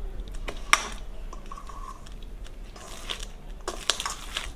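Cooked rice being mixed by hand in a stainless steel bowl: soft squishing and rustling of the rice, with light clicks of fingers against the steel, the sharpest a little under a second in.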